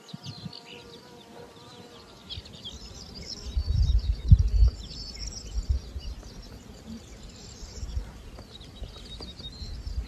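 Bees buzzing over a wildflower meadow, with many short high chirps throughout. Low rumbles of wind on the microphone come a few seconds in and are the loudest part.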